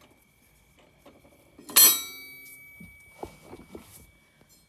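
A single sharp metal clank that rings on for a couple of seconds, then a few lighter knocks: a steel lift bracket being set into place against the ATV's rear mounts.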